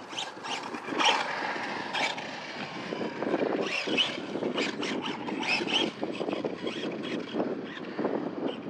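Brushless electric RC buggy being driven: motor whining and tyres scrabbling over the ground, with many short clicks and knocks, under wind buffeting the microphone.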